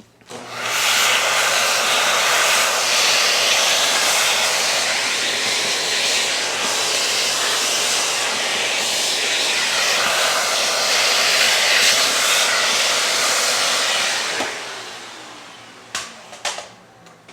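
Vacuum cleaner switched on and running steadily for about fourteen seconds while vacuuming out the grime-caked inside of a coffee grinder, then switched off and winding down with a falling whine. A couple of sharp clicks come near the end.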